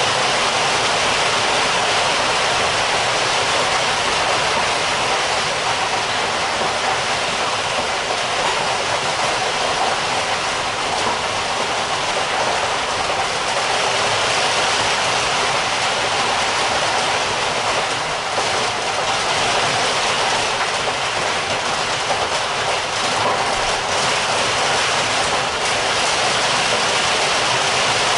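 Heavy rain heard from indoors: a steady, dense hiss of downpour, with a few sharper drops standing out in the second half.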